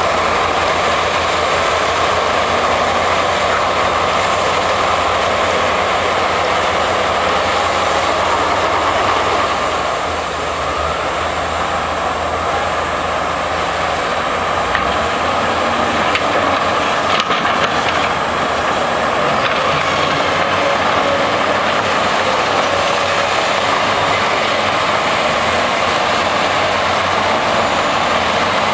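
XE210 hydraulic excavator running, a steady loud mechanical noise of engine and hydraulics, with a few sharp clicks about two-thirds of the way through.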